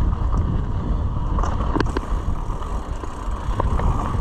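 Mountain bike riding along a dirt trail: a steady rumble of tyres and wind on the microphone, with a few short rattles and clicks from the bike a couple of seconds in and again near the end.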